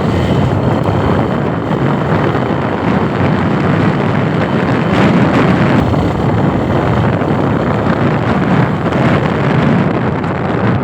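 Loud, steady wind noise buffeting the microphone over a low vehicle rumble.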